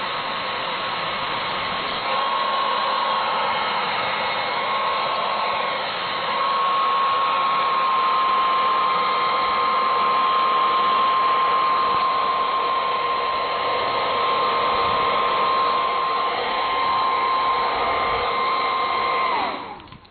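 Hand-held hair dryer blowing, a steady rush of air with a held whine; it gets louder about two seconds in and again about six seconds in. Near the end it is switched off and the whine falls away as the fan spins down.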